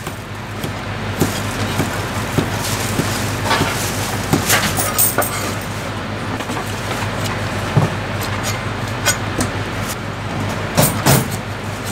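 A Chinese cleaver chopping food on a thick wooden chopping block. Single sharp chops come at uneven intervals, with a louder close pair near the end, over a steady background hum.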